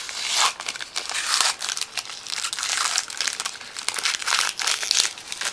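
Foil trading-card pack wrapper crinkling and tearing as it is opened by hand, an uneven run of crackles.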